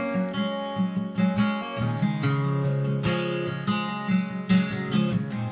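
Background music: a steadily strummed acoustic guitar.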